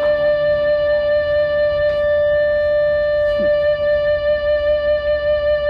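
PRS SE Hollowbody Standard guitar holding a single note that rings on steadily without fading.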